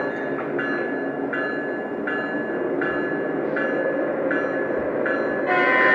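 The Lionel Legacy ES44 model's onboard sound system playing a diesel engine rumble while its electronic locomotive bell chimes about every three quarters of a second. Near the end a louder sustained horn-like blast begins.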